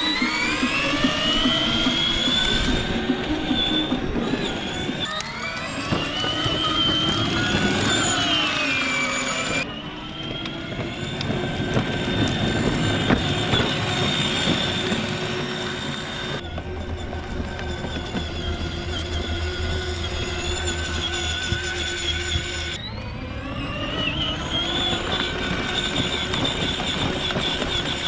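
Electric drive motors and gearboxes of a 24V kids' ride-on UTV whining as it drives, the pitch rising as it speeds up and falling as it slows, several times over.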